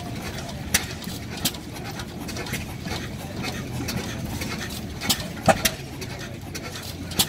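Large antique flywheel stationary gas engine running, with sharp pops at uneven intervals, about six in all, over a steady low hum.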